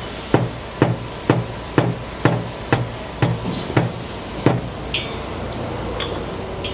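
A hammer striking over and over at a steady pace of about two blows a second. The blows stop about four and a half seconds in, and a couple of lighter metallic clinks follow.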